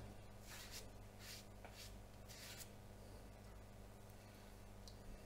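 Faint soft swishes of a watercolour brush drawn across Saunders Waterford cold-pressed paper, a few short strokes in the first three seconds, then a small faint tick near the end.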